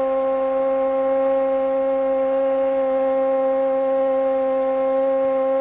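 A steady droning tone at one pitch with several overtones, unchanging throughout.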